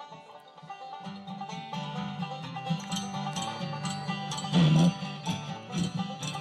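A bluegrass string band plays an instrumental passage between sung verses. Plucked notes run over a steady bass line that comes in about a second in, with one brief louder burst a little past the middle.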